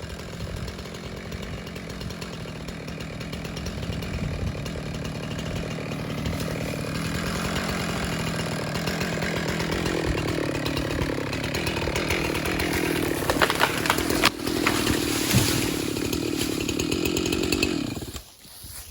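Jonsered chainsaw cutting through a small tree's trunk. Its engine note climbs higher and louder about halfway through. A few sharp cracks come near the two-thirds mark, and the saw cuts off abruptly shortly before the end.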